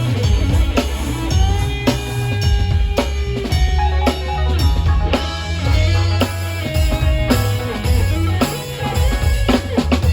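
Live band playing: a drum kit keeps a steady beat with kick drum and snare strokes under a strong bass line, while a melody of held, sliding notes runs over the top.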